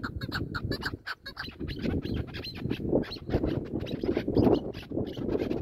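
Chukar partridge calling: a rapid series of short clucking notes, about five a second, over a low steady noise.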